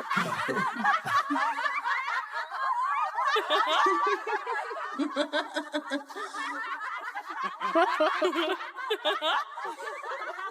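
A group of people laughing, several voices overlapping at once.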